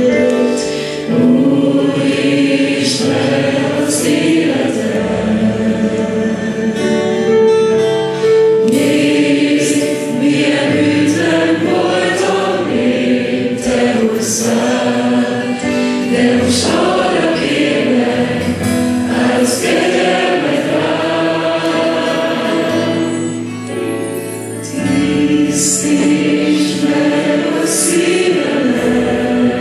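A live worship band plays a Hungarian worship song. Two women and a man sing into microphones over strummed acoustic guitar and drums, with cymbal splashes every few seconds.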